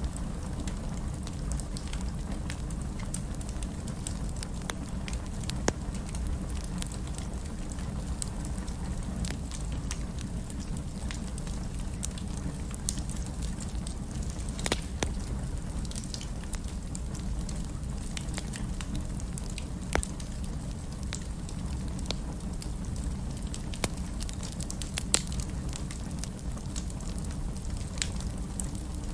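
Wood fire crackling in a fireplace: scattered sharp pops and snaps, a few louder ones, over a steady low rumble of the flames.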